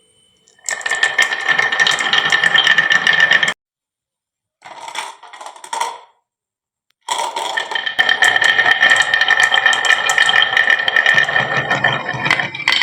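Many glass marbles rolling and clattering down a wooden marble run, a dense rapid clicking with a steady ringing hum. It starts about a second in, cuts off abruptly twice with full silence, and resumes near the middle to run on continuously.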